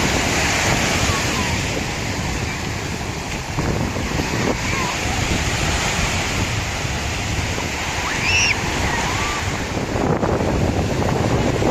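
Sea waves breaking and washing as steady surf, with a few brief high chirps over it.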